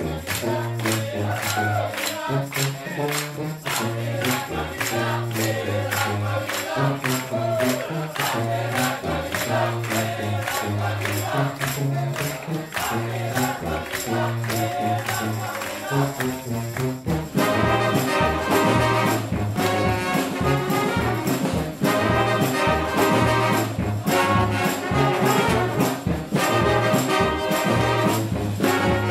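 Brass band playing funk live: a sousaphone bass line and percussion keep a steady beat, then the full horn section of trumpets, trombones and saxophones comes in about 17 seconds in.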